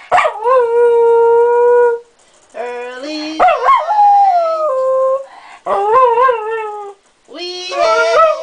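Jack Russell terrier howling: four long howls with short breaks between. The first is held steady for about two seconds; the later ones waver up and down and slide in pitch.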